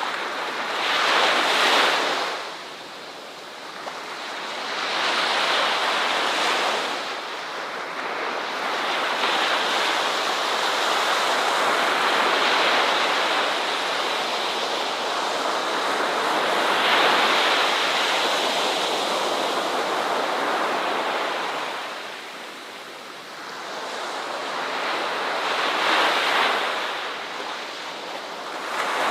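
Ocean waves breaking on a shore and washing up the beach, rising and falling in surges, with a long sustained wash through the middle and quieter lulls between breakers.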